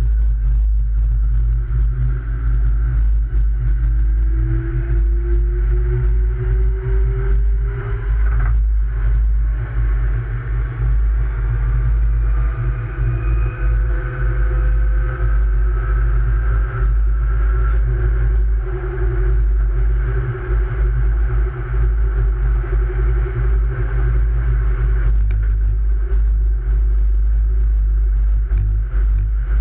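Electric light rail train running along the track: a steady low rumble with the whine of the traction motors gliding up in pitch as the train gathers speed, once in the first several seconds and again around the middle.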